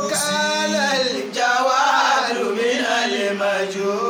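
A man's voice chanting melodically, holding long notes that waver and glide in pitch, with short breaks between phrases.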